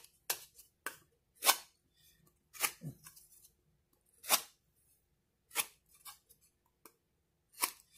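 A handheld blade making short, sharp cuts into the edge of a piece of drywall, about nine strokes spaced roughly a second apart, scoring weak spots so the piece can be snapped.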